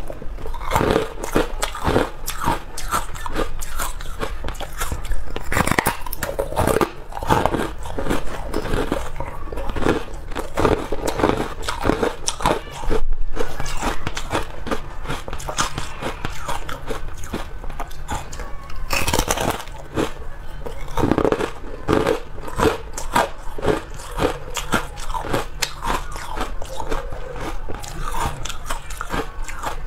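Carbonated ice being bitten and chewed: a run of crisp crunches as a porous, frosty ice block is bitten into and crushed between the teeth, with one louder crack about 13 seconds in.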